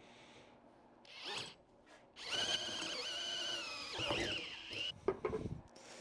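Handheld power drill boring into the end of a copper pipe: a short spin about a second in, then nearly three seconds of steady running with a whine that wavers in pitch as the bit bites into the metal. It stops abruptly and is followed by a single knock.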